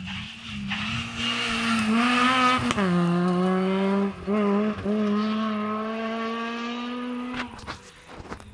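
Rally car at speed on a special stage, its engine climbing in pitch with quick upshifts, then fading away near the end. A few sharp clicks follow the engine fade.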